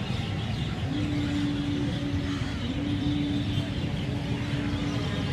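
Traffic ambience with vehicle engines running steadily, and a held steady tone starting about a second in.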